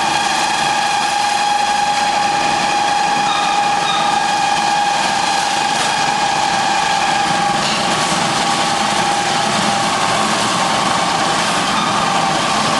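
Feed pellet mill running steadily under load, a continuous mechanical drone with a steady high whine over it.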